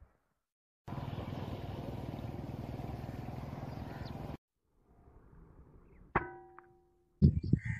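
A single shot from a PCP air rifle: a sharp crack with a brief metallic ring. Before it comes a steady noise of about three and a half seconds that starts and stops abruptly, and loud noisy bursts begin near the end.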